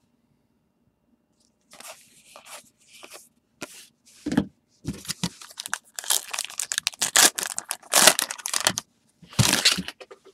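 A baseball card pack wrapper being torn open and crinkled: a few short rips at first, then a dense run of louder tearing and crackling for about four seconds, and one more burst near the end.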